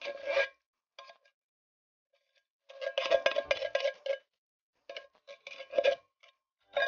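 Coconut meat being scraped out of a metal can in five short bursts with pauses between them, the can ringing with the same clanging metallic tone at each scrape.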